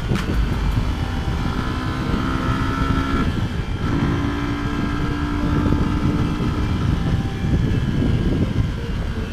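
Motorcycle engine running at speed, with heavy wind rumble on the onboard camera's microphone. The engine note holds steady, breaks briefly about three and a half seconds in, then comes back slightly higher.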